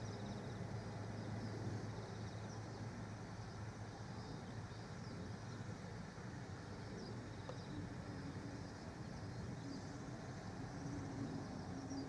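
Steady low outdoor background rumble with faint short high chirps now and then; a low steady hum joins about eight seconds in.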